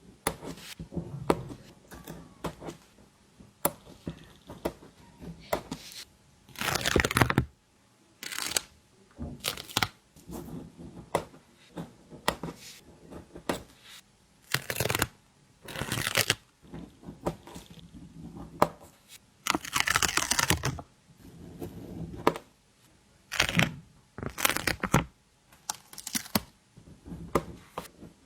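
Stickers being peeled off their backing sheets and handled close to the microphone: a run of short crackling peels and taps, with a few longer peels of about a second each.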